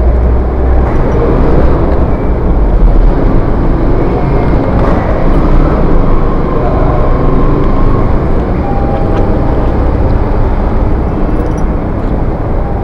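Steady, loud low rumble of car traffic in a covered parking garage, with a car driving through the lane.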